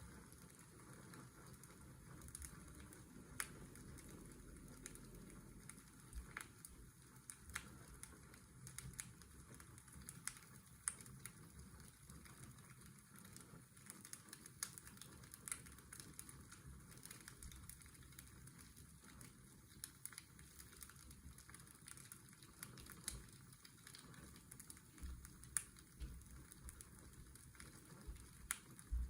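Fireplace crackling, with scattered sharp pops at irregular intervals, over the faint steady drone of a washing machine.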